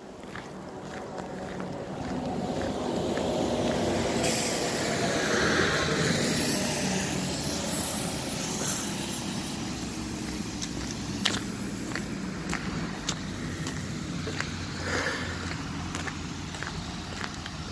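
A lorry driving past on the road: its engine and tyre noise builds over a few seconds, peaks, then slowly fades.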